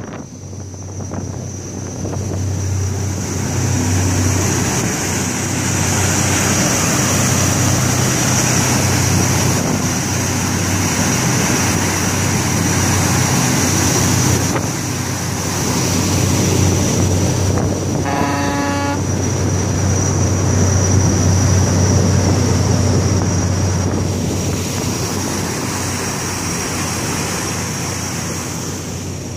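High-speed passenger craft under way: a steady low engine drone with a thin high whine over it, mixed with rushing wind and churning wake water. A horn sounds once, briefly, about eighteen seconds in.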